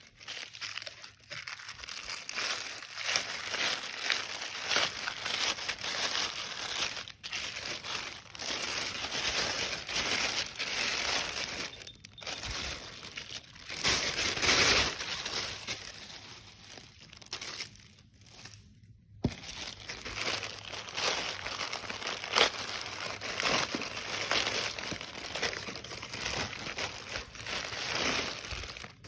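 Crinkly packaging being handled and crumpled: a dense, continuous crackling, with a few brief pauses, one of them about two-thirds of the way through.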